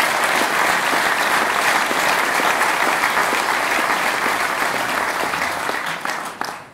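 A hall full of people applauding steadily, many hands clapping at once, the clapping dying away near the end.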